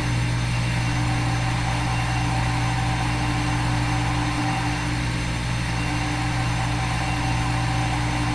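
Steady low machine-like hum with a few faint steady tones above it, holding at one level without change.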